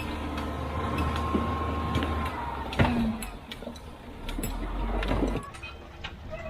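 Heavy diesel construction machine working: a low engine rumble with a steady hydraulic-type whine, a sharp metal clank about three seconds in and a few lighter knocks, then the engine sound drops off about five and a half seconds in.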